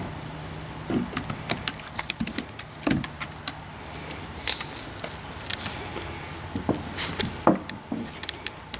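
Siberian husky gnawing at a raw cow marrow bone on a wooden deck: irregular sharp clicks, scrapes and knocks of teeth on bone and bone on the boards, in clusters with short pauses.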